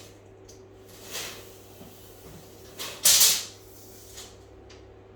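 Tape measure being pulled out and handled for a wall-to-wall measurement: a few short scrapes and knocks, the loudest a brief rasp about three seconds in.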